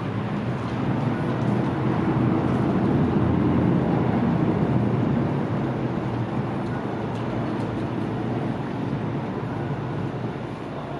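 Car ferry's engines running with a steady low drone as it manoeuvres slowly onto its berth, swelling for a few seconds and then easing. Wind buffets the microphone.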